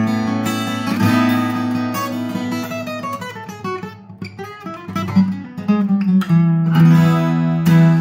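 Recording King RD-17 dreadnought acoustic guitar, solid spruce top with rosewood back and sides, played fingerstyle: plucked melody notes over ringing chords. It softens to a few quiet notes around the middle, then fuller chords ring out from about six seconds in.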